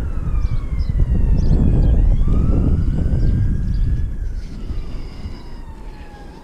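Police car siren on a slow wail, its pitch sweeping down, then up, then down again, under heavy wind buffeting on the microphone. It grows fainter over the last couple of seconds.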